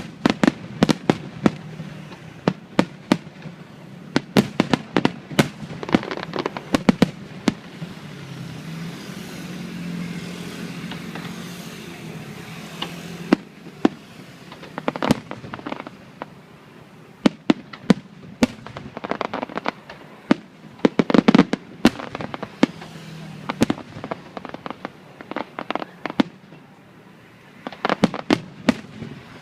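Aerial fireworks shells bursting overhead in rapid volleys of sharp bangs. A steady rushing noise builds from about 8 s and cuts off suddenly just after 13 s; the bangs then resume in clusters.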